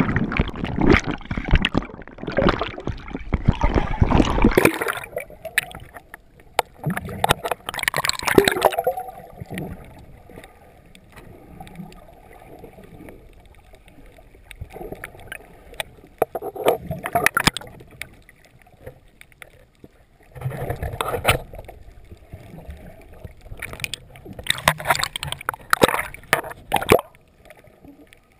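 Muffled underwater sound picked up by a GoPro in its waterproof housing: water sloshing and gurgling, with louder bursts of rushing water every few seconds. A loud, busy stretch of noise opens the sound and cuts off abruptly about four and a half seconds in.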